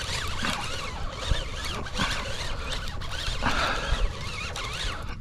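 Fishing reel being cranked in on a hooked fish, a whirring whine that rises and falls over and over with the turns of the handle, over a low rumble of wind on the microphone.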